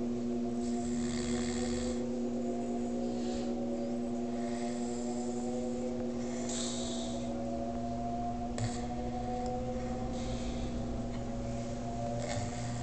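A man snoring, with a noisy breath every two to three seconds, over a steady hum that runs throughout and is the loudest sound.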